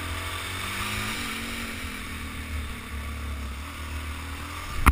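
Suzuki DR-Z400S's single-cylinder four-stroke engine running as the bike is ridden along a dirt trail, the revs rising briefly about a second in, with wind rumbling on the helmet-mounted camera.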